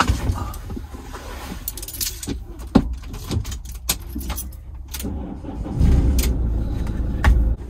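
Clicks, knocks and rattles of a campervan's swivel cab seat being pulled on and shifted, with a louder jolting rumble near the end as part of the seat's swivel mechanism pulls out.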